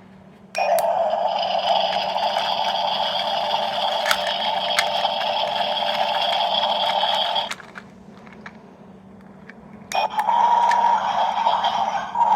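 A sound-making capsule toy playing a recorded sound effect through its tiny speaker: a steady, noisy, buzzing sound that starts suddenly, runs for about seven seconds and cuts off, then starts again near the end.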